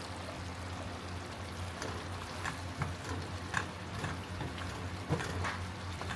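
A pan of sautéed green beans and pork simmering, with a steady low hum and a few sharp clicks and taps.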